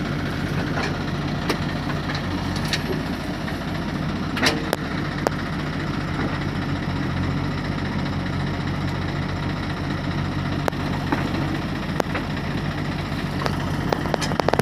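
Diesel engines of a JCB 3DX backhoe loader and a John Deere 5310 tractor running steadily while loading soil. A few short sharp clanks sound over the engine hum.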